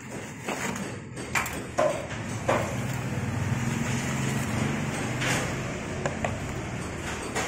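A cardboard box and a hard plastic tool case being handled as the case is pulled out of the box: rustling with a few sharp knocks and clicks. From about two and a half seconds in, a low steady drone runs under it.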